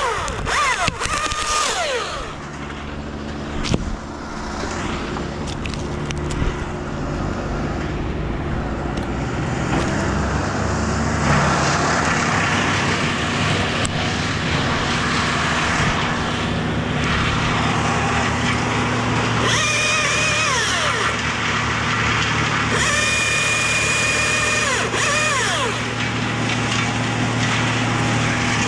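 Battery top-handle chainsaw (Husqvarna T540i) giving short high-pitched whines that wind down each time the trigger is let go: once at the start and twice more past the middle. There are a few sharp knocks in the first seconds. From about ten seconds in, a steady low engine drone runs underneath.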